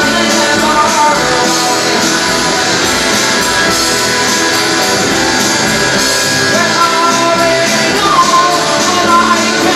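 Rock music with guitar playing.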